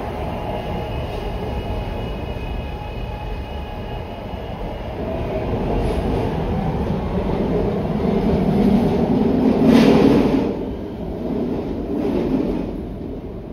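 A SEPTA Market-Frankford Line train running at the station with a steady low rumble and a faint high whine in the first few seconds. It grows louder to a peak about ten seconds in, then eases off near the end.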